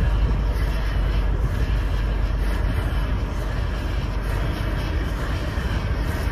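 Steady rush of wind buffeting the microphone, with road and tyre noise from the camera car driving at speed.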